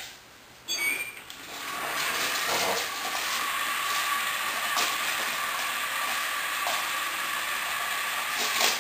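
R2-D2 Interactive Astromech Droid toy driving across a tile floor: a steady hissing whir from its drive motors that starts about a second in and cuts off suddenly near the end.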